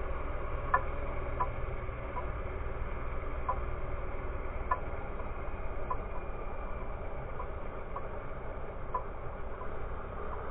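Snowmobile engine running steadily while riding, with light ticks about once a second over the engine note.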